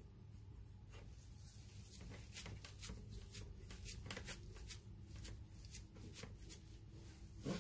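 A dried laver (nori) sheet wrapped round a kimbap roll rustling and crackling under the hands as the roll is pressed and rolled on a plastic cutting board: a string of faint, short crinkles.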